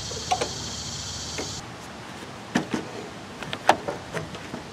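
Scattered light clicks and knocks from hands handling a wrench and a piece of cardboard under a garden tractor, ready to open the oil drain plug. A steady high hiss runs underneath and cuts off about a second and a half in.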